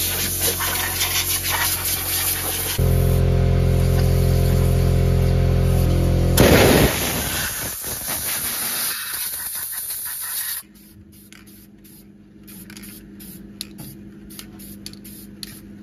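Aerosol spray can hissing as black paint goes onto a bare-metal K-frame engine mount, over a steady low hum that gets louder about three seconds in and cuts off about ten seconds in.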